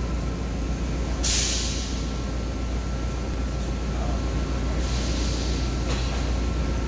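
TIG welding on stainless steel plate: a steady low electrical hum with hissing surges, one starting sharply about a second in and another around five seconds in.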